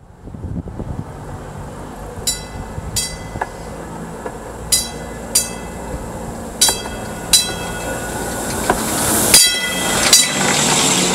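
TTC CLRV streetcar rolling along the track and passing over a low camera. A rumble builds steadily, and the wheels click over the rail joints in pairs, each click ringing in the rail. The loudest click comes as it passes overhead near the end.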